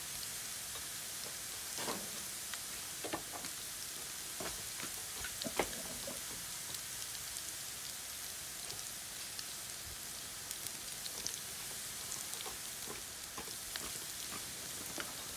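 Shallot, garlic and chili for sa tế frying in hot oil in a pan: a steady sizzle with scattered clicks of a spatula stirring it.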